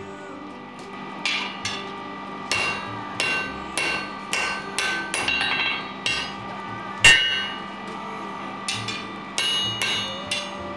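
Blacksmith's hand hammer forging a red-hot iron bar on an anvil: a run of ringing blows starting about a second in, roughly two a second with short pauses, the loudest blow a little after the middle.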